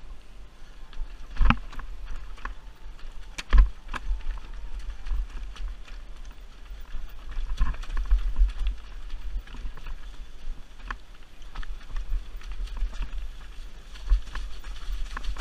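Mountain bike clattering down a rocky trail: tyres and frame knocking over rocks, with sharp hits about one and a half and three and a half seconds in, over a low steady rumble.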